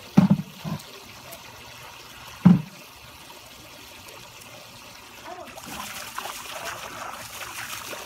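Water trickling in a nearly drained swimming pool, with a few loud, short low thumps near the start and at about two and a half seconds. The trickle turns louder and hissier from about five and a half seconds in.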